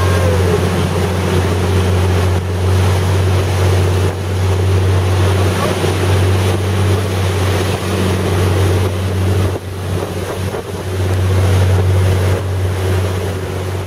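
Outboard motor of a speedboat running steadily at high speed, a constant low drone, over the rush and spray of the churning wake, with wind buffeting the microphone.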